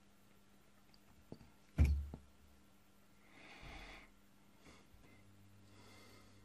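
A heavy brass pen is handled and shaken in the hand. About two seconds in there is one sharp click with a dull low knock, with a couple of light ticks around it. After that come two soft breathy rustles, and a faint low hum begins near the end.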